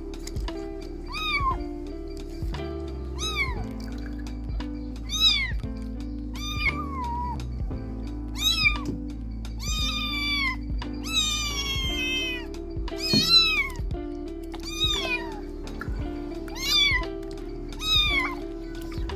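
Kittens meowing over and over, high-pitched calls coming every second or two, with background music underneath.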